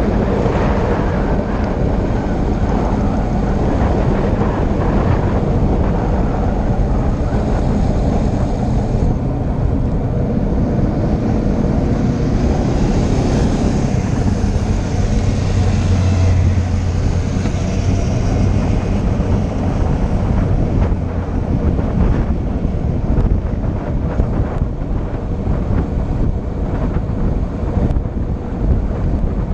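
Wind rushing over the microphone at speed during a fast downhill descent, a steady loud rumble. It swells with a stronger low hum about halfway through.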